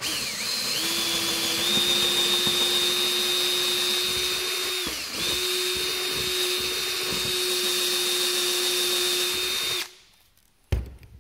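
Power drill boring a hole into wood, its motor whining steadily under load. About halfway through it slows briefly and speeds back up. It stops about ten seconds in, followed by a single sharp knock.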